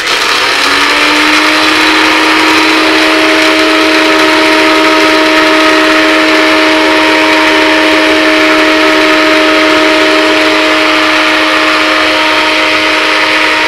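Small electric blender-grinder motor starting abruptly, spinning up over the first second to a steady high whine. A harsh grinding noise runs under the whine as the blades dry-grind roasted gram (pottukadalai) into a fine powder.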